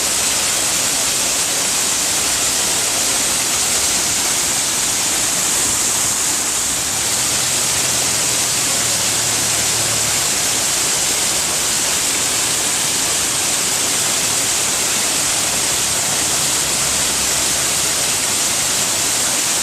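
Waterfall with water pouring down in a steady, unbroken rush that carries a lot of hiss.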